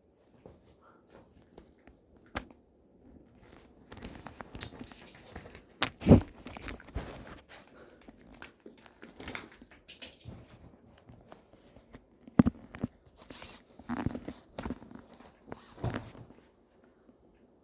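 A puppy moving about and playing: irregular rustling, scratching and crinkling with sharp knocks, the loudest about six seconds in and again about twelve seconds in.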